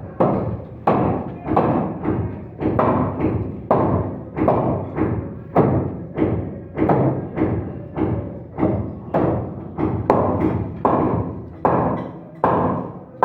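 Steady hammer blows on wood, a little under two a second, each with a sharp knock and a short ringing decay.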